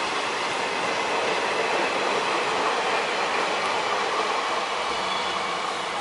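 A rake of railway coaches rolling along the track: a steady rumble and hiss of wheels on rails, with a faint high squeal.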